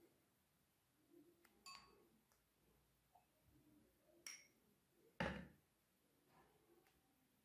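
Near silence broken by a few faint glassy clicks and a louder dull knock about five seconds in, as a small glass bowl is set down on a tray.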